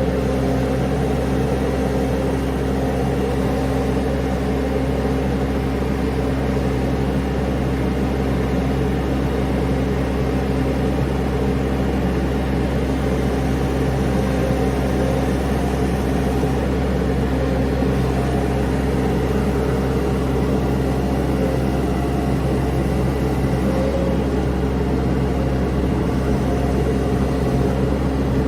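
Mini skid steer engine running steadily at constant speed, with a fixed pitch and no revving.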